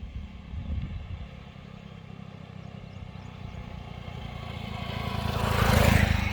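A motor vehicle passing close by: a low engine rumble swells to its loudest about six seconds in, then starts to fade.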